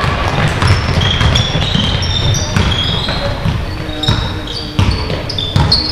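Basketball being played on an indoor court: sneakers squeak in short high chirps against the floor, the ball bounces, and feet hit the floor, with players' voices calling.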